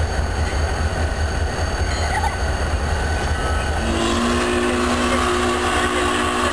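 Steam locomotive's chime whistle sounding a steady multi-note chord, starting about four seconds in, over a steady low rumble. The locomotive is the SP&S 700, a 4-8-4 Northern.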